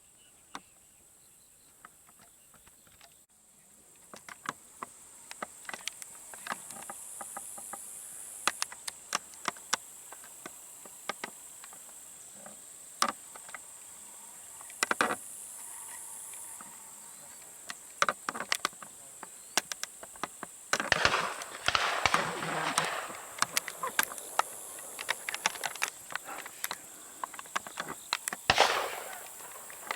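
Steady high insect buzz from the surrounding field, with many scattered sharp clicks and knocks and a few longer rustling noises about two-thirds of the way through and near the end.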